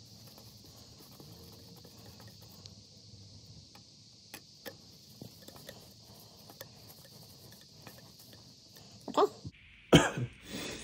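Large flat-blade screwdriver turning a threaded steel insert by hand into an injector hold-down bolt hole in a diesel cylinder head: a few faint scrapes and clicks over a steady hiss. Two louder knocks near the end.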